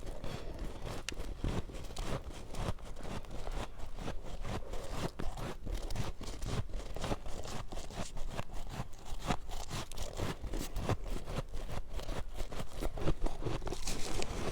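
Close-up chewing of powdery freezer frost: a dense, irregular run of crisp crunches.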